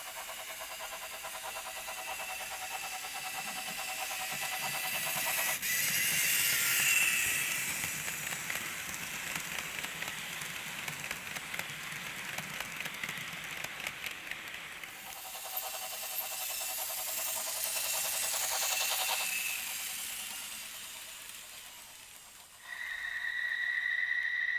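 Märklin H0 model train running on the layout's track: a steady rolling hiss and motor hum that swells twice as the train passes close by. Near the end a steady high tone sounds for about three seconds and stops suddenly.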